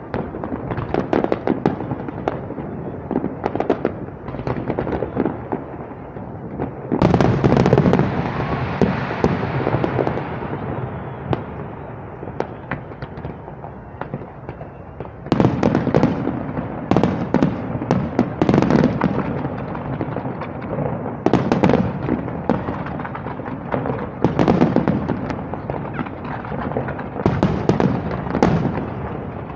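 Fireworks display: aerial shells bursting in quick succession, a steady run of bangs and crackles. A sudden loud burst about seven seconds in fades away over a few seconds, and heavier bangs follow from about halfway.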